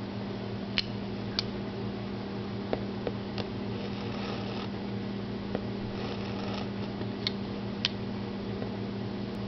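A utility knife blade working at a barcode sticker on a plastic motor-oil jug: scattered small clicks and brief scratchy scraping, over a steady low hum.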